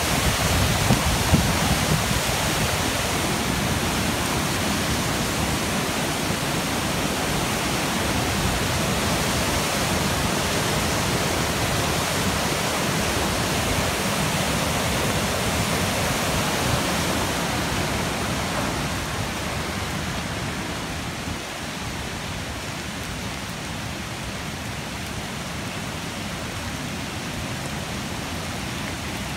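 Floodwater of the River Greta in full spate thundering under a stone bridge: a dense, steady roar of rushing water. It grows quieter and duller about two-thirds of the way through.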